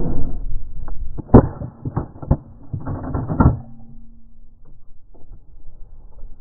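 A run of short mechanical clicks and clacks, several close together about three seconds in, then fainter handling noise.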